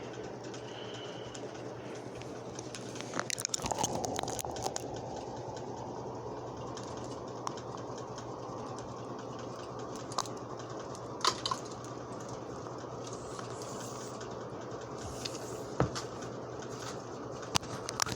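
Handling sounds as a studio monitor and its packaging are unpacked: a burst of rustling about three to four seconds in, then scattered sharp clicks and knocks over a steady hum.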